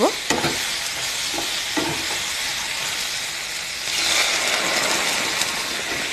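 Mixed vegetables sizzling in hot oil in a non-stick pan, with a few light spatula knocks in the first two seconds. About four seconds in, water is poured into the hot pan and the sizzle turns louder and hissier.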